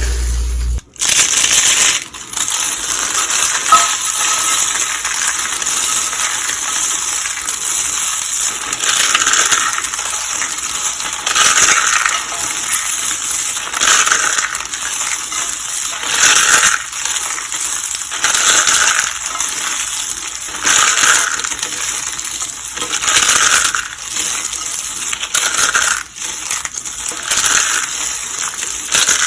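Pink soap roses and soap curls being crushed: a continuous crisp crunching and crackling, with a stronger crunch about every two seconds.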